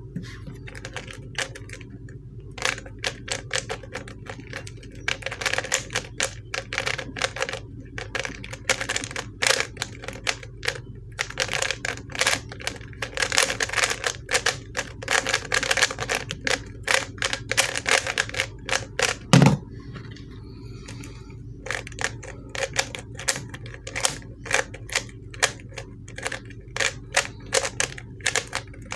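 Plastic 3x3 speed cube (Shengshou) turned rapidly in a timed solve: dense runs of plastic clicks and clacks from the layers turning. The cube is one its owner finds very stiff to turn. About 19 seconds in there is a single louder thump as the solve ends and the timer is stopped, then slower, sparser turning clicks.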